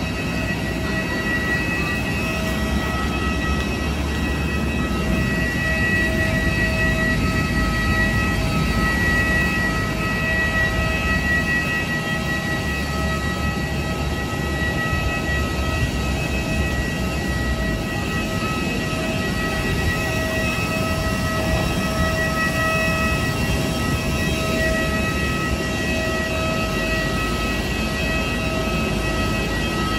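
Steady whine of a jet airliner's turbine running at the stand: several high, level tones over a low rumble.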